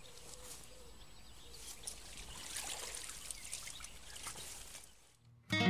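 Water splashing in the shallows and pouring and dripping off a wet carp sling as it is lifted out of the lake after a fish is released. Guitar music starts abruptly at the very end.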